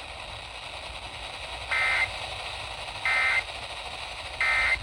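Emergency Alert System end-of-message data bursts from a weather radio broadcast: three short, identical buzzy bursts about 1.3 seconds apart over steady radio hiss, marking the end of the alert message.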